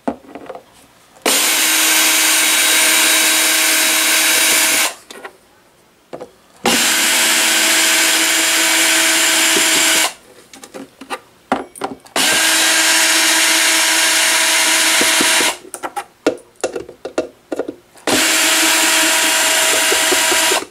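Cordless drill/driver backing out four screws, one after another: four steady runs of the motor, each about three and a half seconds long, with clicks and handling noise between them.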